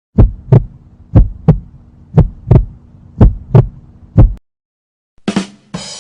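Heartbeat sound effect: low, deep double thumps (lub-dub) about once a second, four pairs and a last single thump, stopping about four and a half seconds in. Near the end a short hit sounds, and another effect starts.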